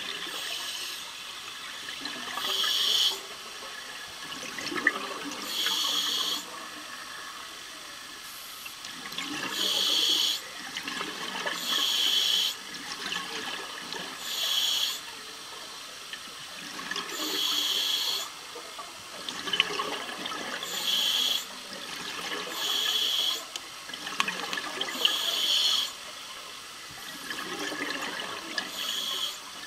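An underwater diver breathing through a regulator: a sharp hiss alternates with a bubbling rush, the cycle repeating about every three seconds.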